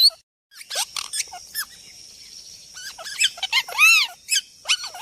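Parrot calling: a string of short squeaky chirps and squawks, with one longer arched call about four seconds in, the loudest of them.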